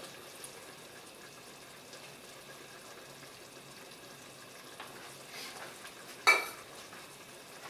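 Sauce simmering in a stainless pot on a gas burner, with canned diced tomatoes just added: a steady low sizzling hiss. A single sharp knock comes a little over six seconds in.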